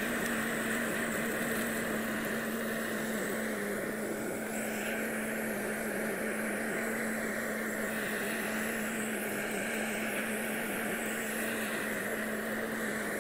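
Handheld kitchen blowtorch burning with a steady rushing flame, caramelizing the sugar on top of a crème brûlée.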